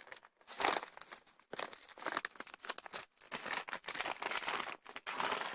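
A packaging bag crinkling and rustling in irregular spurts as it is handled.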